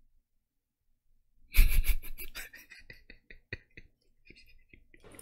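A man bursting into laughter about a second and a half in: a loud run of quick breathy laughs that trails off into scattered chuckles and a few high wheezes.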